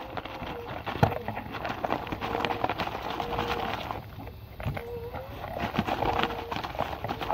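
A dog crunching and licking crispy shrimp snacks off a paper plate: irregular crunches and wet clicks of chewing, with a sharp crunch about a second in.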